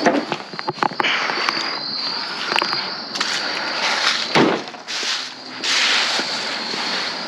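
Junk being handled and moved about: scattered knocks and clatter, with a heavier thud a little over four seconds in.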